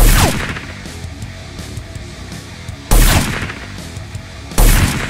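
Background music with three loud gunshot-like blasts: one at the start, one about three seconds in and one near the end, each trailing off with a falling pitch.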